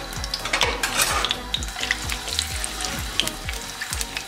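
Chopped garlic sizzling in hot desi ghee in a frying pan: a steady hiss with scattered sharp pops, and a denser burst of sizzle about a second in. The garlic is stirred through the oil with a silicone spatula.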